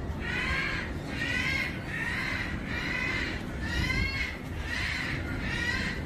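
An animal calling in short, harsh, repeated calls, about one a second, over steady wind noise.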